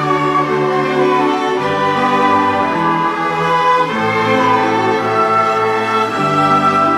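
Cello ensemble with a children's string orchestra playing a melody in long bowed notes, the notes changing about every one to two seconds.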